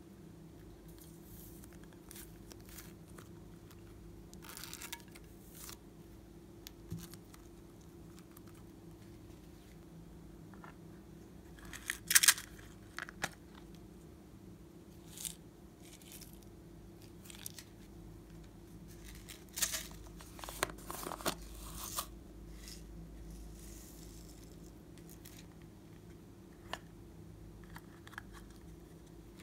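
Hands handling plastic slime containers and trays: scattered short clicks, scrapes and crinkles. The loudest comes about twelve seconds in and a cluster follows around twenty seconds, over a faint low hum.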